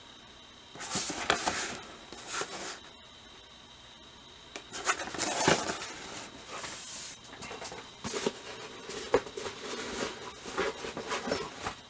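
Cardboard plastic model kit box handled by hand: rubbing, scraping and light knocks in several bursts, with a sudden break about three seconds in.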